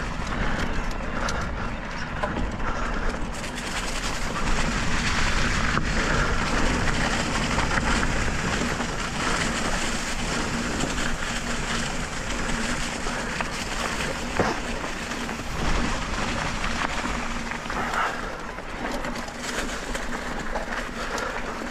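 Mountain bike tyres rolling fast over a dirt singletrack covered in dry, crackly fallen leaves, making a steady rushing noise with a few small clicks and knocks from the trail, and a faint steady hum underneath.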